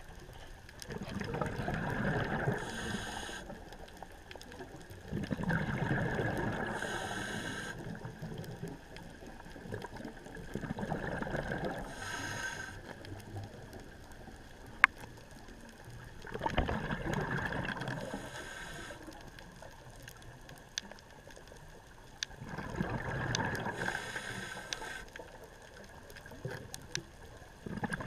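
Scuba diver breathing through a regulator underwater: five surges of rumbling, gurgling exhaled bubbles, one about every five to six seconds, each with a brief hiss from the regulator.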